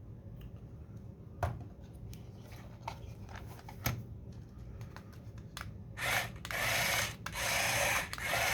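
Metal-geared blue TT gear motors of a small 3D-printed tracked RC model whirring in about four short bursts, starting about six seconds in, its gears and print-in-place tracks turning. Before that there are a few light handling clicks.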